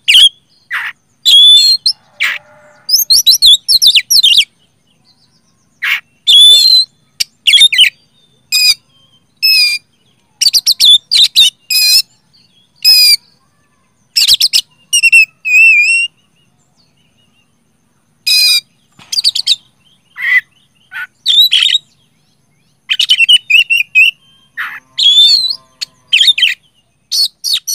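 Oriental magpie-robin (kacer) singing loudly in rapid runs of clear whistled and chattering phrases, with pauses of a second or two between runs.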